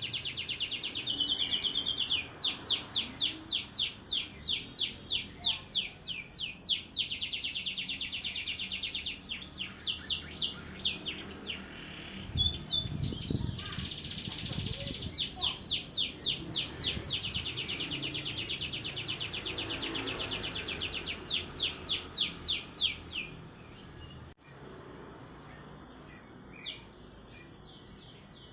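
Domestic canary singing fast, tightly packed phrases of high, rapid trills and repeated notes, with short pauses between phrases. A brief low rumble comes about halfway through.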